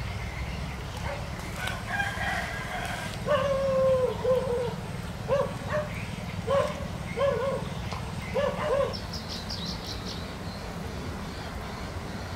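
A chicken calling: one long call about three seconds in, then a run of about five short calls, over a steady low rumble.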